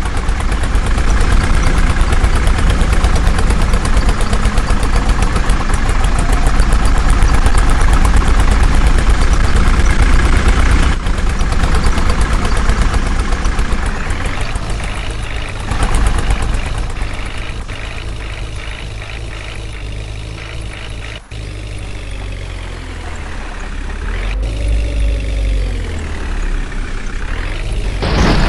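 Heavy diesel engine running, loud and steady at first, then quieter, with its speed rising and falling several times near the end.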